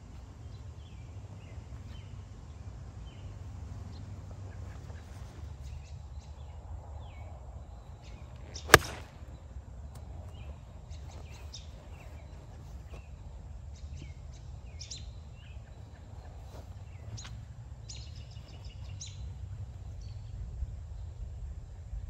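Gap wedge striking a golf ball: one sharp, loud crack about nine seconds in, over a steady low rumble with scattered bird chirps.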